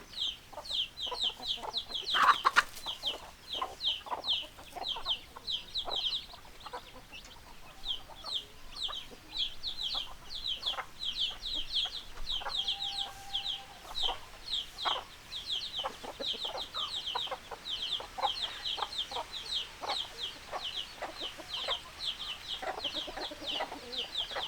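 Chickens: hens clucking amid a constant rapid high-pitched peeping, several short peeps a second. There is a louder sharp squawk about two seconds in and a drawn-out lower hen call near the end.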